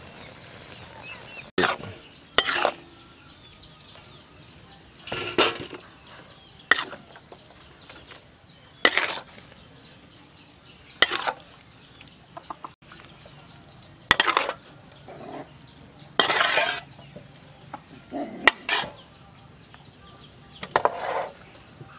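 A metal spatula and ladle scraping and clanking against a steel wok and a steel serving tray, in short separate strokes every couple of seconds, as cooked noodles are scooped out. Chickens cluck in the background over a steady high pulsing hum.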